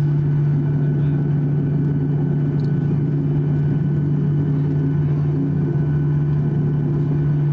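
Cabin noise of a Boeing 737-800 with its CFM56-7B engines running, heard inside the cabin as the jet moves on the runway before takeoff: a steady low drone with a rumble beneath it.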